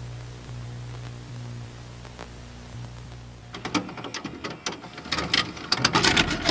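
VHS-style tape static sound effect: a steady low hum under hiss, then from about three and a half seconds in, loud crackling static that grows denser toward the end.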